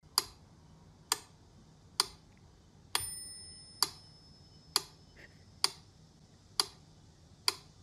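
Mechanical pendulum metronome ticking steadily, a little under once a second, with its bell ringing on the accented beat about three seconds in.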